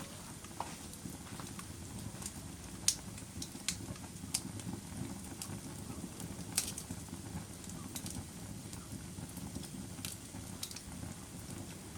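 Wood fire burning in a fireplace: a steady low rumble of flames with irregular sharp crackles and pops, the loudest about three seconds in and again past six and a half seconds.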